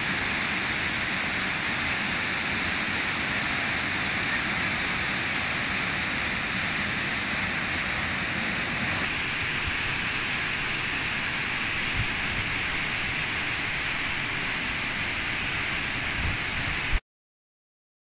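Waterfall pouring onto rock: a steady rush of falling water, with a couple of brief low bumps. It cuts off suddenly near the end.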